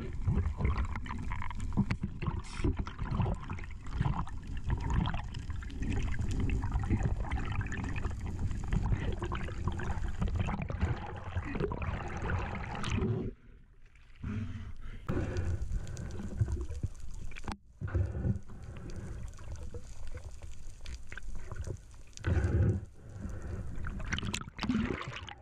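Water rushing and gurgling against an underwater camera as a freediver swims, an uneven noise heavy in the lows. There are two brief drops near the middle and a splashy burst near the end as the camera breaks the surface.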